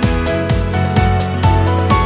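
Background music with a steady beat, about two beats a second, under a melody.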